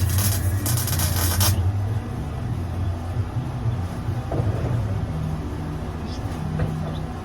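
Arc welding crackle for about the first second and a half, then it stops, leaving a steady low hum.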